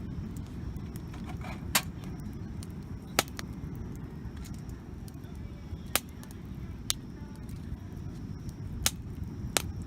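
Wood campfire burning, with about six sharp, scattered crackling pops over a steady low rumble.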